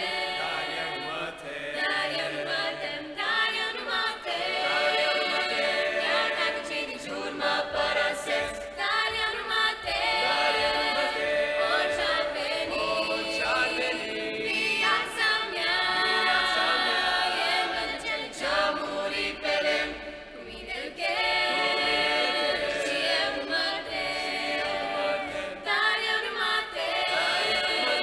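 Mixed a cappella group of men's and women's voices singing a Romanian church song in harmony, unaccompanied.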